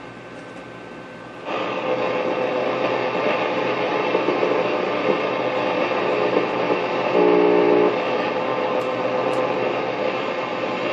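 Shortwave static hiss from the speaker of a Zenith Trans-Oceanic Royal 3000-1 transistor radio as it is tuned, getting suddenly louder about one and a half seconds in. No station comes in: only noise, with a few faint brief tones partway through.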